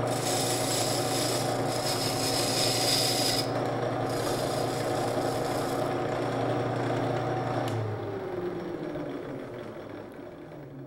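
Banjo rim lathe running with a steady hum while its tool bit takes light cuts on the spinning wooden rim. The cuts make a hissing scrape in two passes that stops about six seconds in. Near the end the hum falls in pitch and fades as the lathe winds down.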